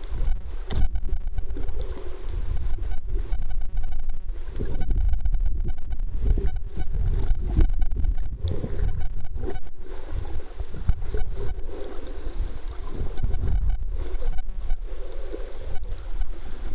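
Muffled underwater sound picked up by a camera held under water: an irregular low rumble and sloshing of moving water, with scattered clicks and knocks.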